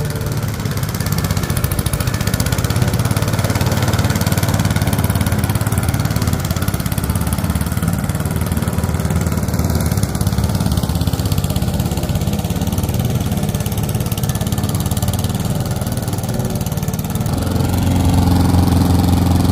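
Gasoline walk-behind push lawn mower's small engine running steadily while cutting grass, a little louder near the end.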